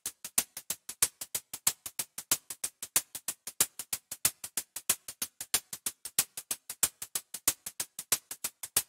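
Synthesized closed hi-hat made with FL Studio's 3x OSC plugin, playing a steady pattern of short, bright, hissy ticks about six a second, with loud and soft hits alternating.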